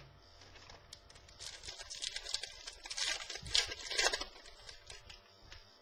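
Football trading cards and their packaging being handled, with a run of quick rustles and card flicks from about one and a half to four seconds in.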